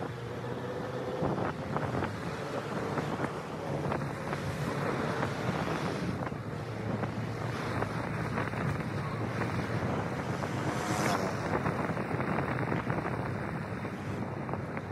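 A vehicle driving along the road, heard from inside: a steady engine hum under road noise, with wind buffeting the microphone.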